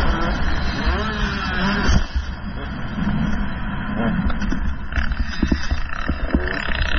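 GasGas 125 two-stroke motocross bike engine revving hard while being ridden, its pitch repeatedly rising and falling through throttle changes, with a brief drop in loudness about two seconds in.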